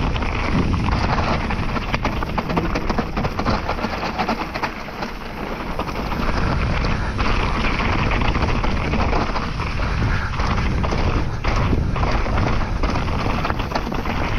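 A Trek Remedy 7 full-suspension mountain bike riding over rough trail: tyres and bike rattling and knocking over the ground, under steady wind rumble on an action-camera microphone.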